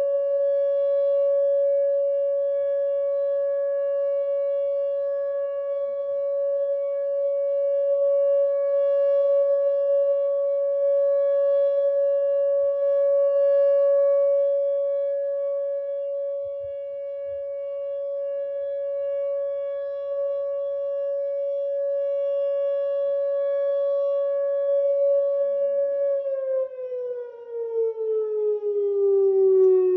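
Whelen WPS 2909 electronic outdoor warning siren sounding a steady tone, its level slowly swelling and fading. Near the end the pitch starts sliding down as the siren winds down.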